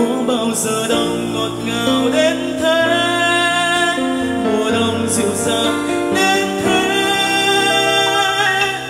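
Man singing a Vietnamese pop ballad live, backed by a band of piano, acoustic guitar, bass, drums and saxophone. The music gets quieter near the end.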